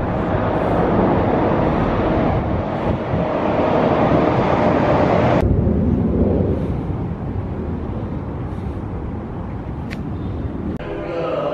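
Loud, steady outdoor background noise with no distinct events; it thins in the higher range at a cut about five seconds in. In the last second it gives way to music with held tones.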